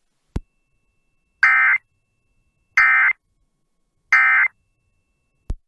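Emergency Alert System end-of-message signal: three short, identical bursts of digital data tone, about a second and a half apart, marking the end of a weather warning broadcast. A click comes just before the first burst and another after the last.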